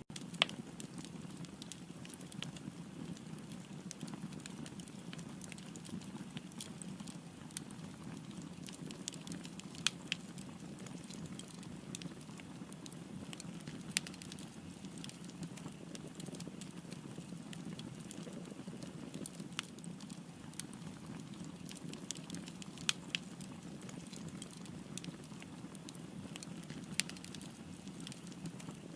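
Wood fire burning with a steady low rush of flames and frequent sharp crackles and pops, a few of them noticeably louder.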